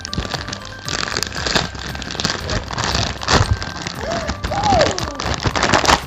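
Plastic toy packaging crinkling and crackling as it is torn open by hand, in a dense run of irregular crackles.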